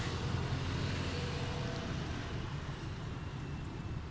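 Steady low rumble of road traffic, swelling slightly in the first couple of seconds as a vehicle passes and then easing off.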